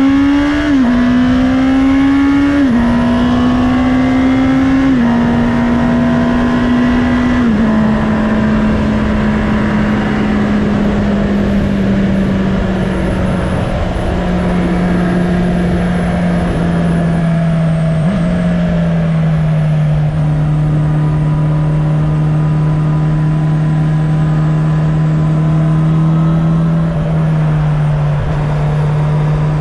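2019 Honda CB650R's inline-four engine pulling hard through the gears, its pitch rising and dropping at four quick upshifts in the first eight seconds, then cruising at a steady, slowly falling note with one more drop in pitch around the middle. Wind and road noise rush underneath.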